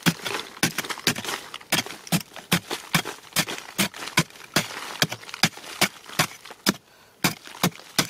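Metal digging blade striking and scraping into the hard, dry earth of a termite mound, about two to three sharp chops a second, with loose soil crumbling and pattering down between strokes and a short pause near the end.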